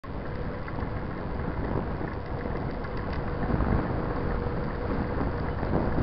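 Wind buffeting an action camera's microphone while a mountain bike rides along asphalt, with a rough low rumble of tyres and movement; it grows louder about halfway through.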